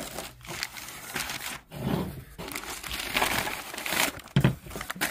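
Newspaper packing paper crinkling and rustling on and off as a plate is unwrapped from it.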